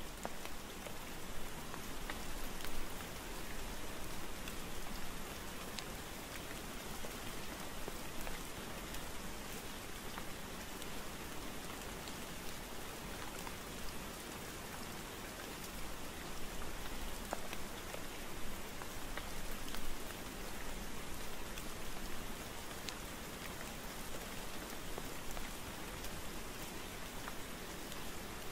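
Steady rain falling: an even hiss with scattered drops ticking through it.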